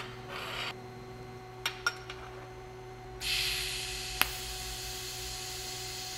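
Stainless steel parts clinking against each other three times in quick succession, then a TIG torch hissing steadily from about three seconds in, with one sharp click a second after it starts. A steady electrical hum runs underneath.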